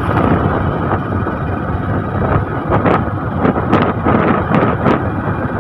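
Wind buffeting the microphone in irregular gusts over the steady rumble of a moving vehicle and its tyres on a rough road.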